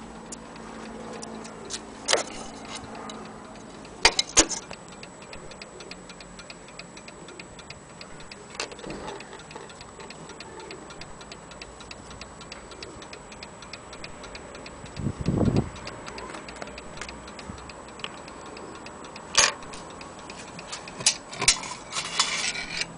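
Antique French slate and marble mantel clock ticking with quick, even beats as its pendulum movement runs. A few louder knocks and clicks, and one deeper thud past the middle, sound over the ticking.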